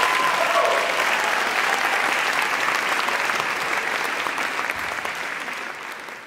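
Audience applauding steadily, the clapping tapering off near the end.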